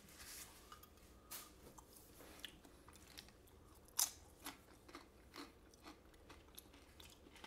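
A person chewing Chinese takeout food, quietly, with scattered crisp crunches and mouth clicks; the sharpest crunch comes about four seconds in.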